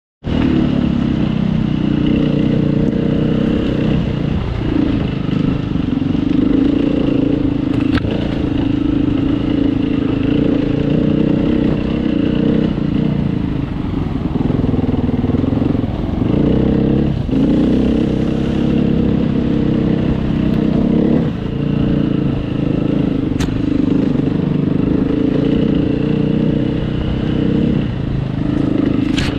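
Trail motorcycle engine running at low to moderate revs, its pitch rising and falling with the throttle over a rough stony track. A few sharp knocks from the bike jolting over stones.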